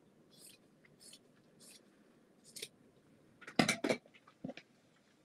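Scissors cutting through fabric: a series of short, crisp snips about half a second apart, followed by two louder knocks about three and a half seconds in.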